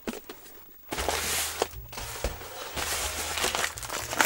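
Brown paper packing being unwrapped by hand, rustling and crinkling, starting about a second in after a quiet moment.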